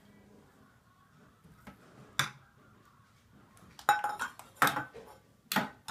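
Small metal pan clanking against a toy play kitchen as a toddler handles it. One sharp clank comes about two seconds in, then three more clattering knocks with brief metallic ringing near the end.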